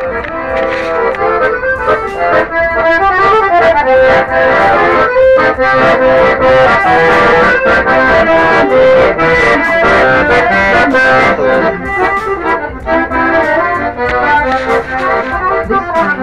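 Accordion-led music, a quick run of changing notes over a steady beat.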